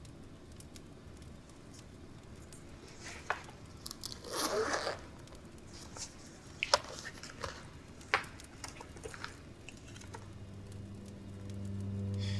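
Soft handling sounds of a wallet: scattered sharp clicks and a brief rustle about four seconds in. A low music drone comes in near the end and grows louder.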